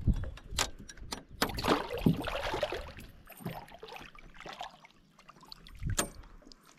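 Water splashing and dripping as a hooked smallmouth bass is grabbed by hand at the surface beside the boat and lifted out. Several sharp knocks and clicks come in the first second or so, and one more about six seconds in.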